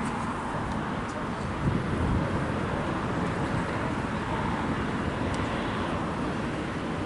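Steady low rumbling outdoor background noise on a camera microphone, with a brief louder thump a little under two seconds in.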